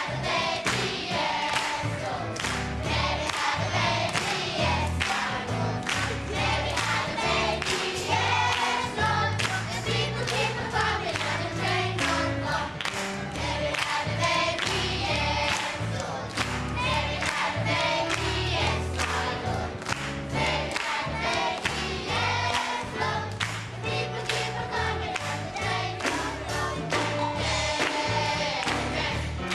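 A choir singing a song over instrumental music with a steady beat.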